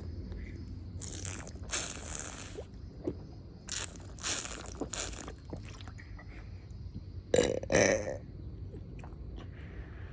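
A person burping: two short, loud burps close together about seven and a half seconds in, after several shorter breathy, hissing noises.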